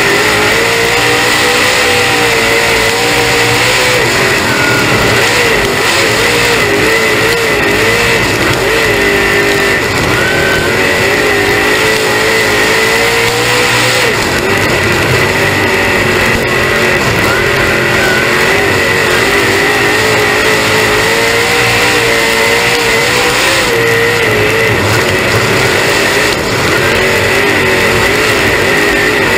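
Dirt late model race car's V8 engine under racing load, heard from on board: loud and continuous, its pitch rising and falling again and again with the throttle, with a steady high whine over it.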